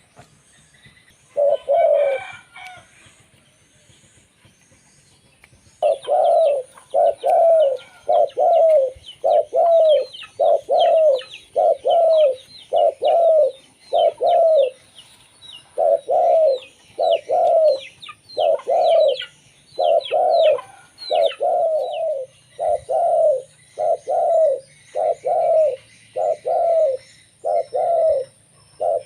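Zebra dove (perkutut) cooing: one short call, then after a pause a long, even run of short cooing notes at about one a second. Thin high chirps from another small bird sound above the cooing for much of the run.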